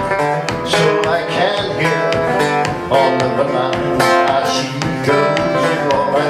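A 1964 Framus six-string banjo picked in a quick, lively country-blues pattern of bright plucked notes.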